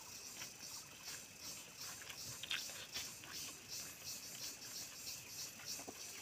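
Faint, irregular soft clicks and squishes of fingers kneading rice and curry against a steel plate.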